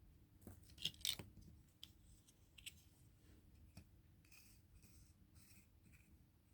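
Faint handling of packaging and small objects in an unboxing: a few sharp clicks and taps about a second in, lighter ticks after, then soft rustling.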